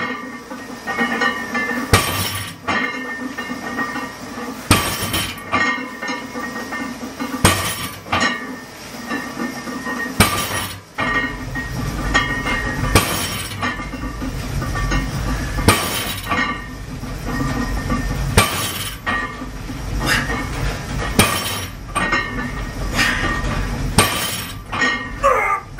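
Plate-loaded trap bar set down on the floor at the bottom of each deadlift rep: a sharp clank about every two and a half to three seconds, nine times.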